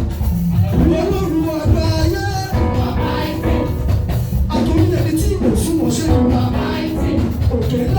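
Live gospel praise music with voices singing over drums and shaken percussion, loud and steady.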